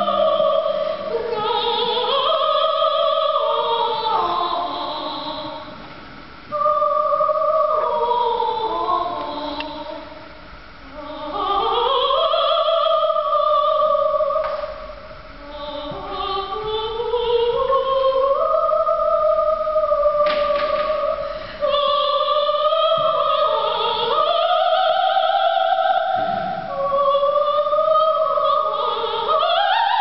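Operatic soprano singing a florid, largely unaccompanied passage: quick runs and glides sweeping up and down, broken by a few short pauses.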